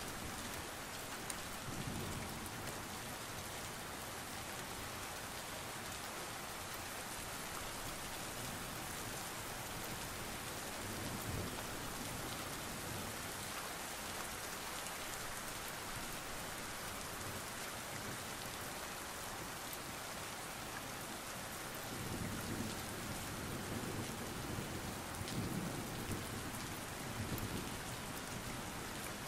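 Steady rain falling on hard city surfaces, an even hiss, with low rumbles coming and going, strongest near the end.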